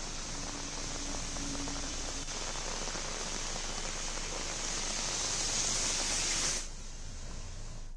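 Steady hiss of heavy rain falling on a wet road. It cuts off suddenly about six and a half seconds in, leaving a fainter hiss.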